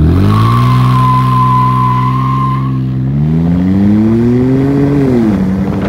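Car engine pulling hard under acceleration. Its pitch climbs, then drops sharply about five seconds in as it shifts up. A steady high whine sits over the first few seconds.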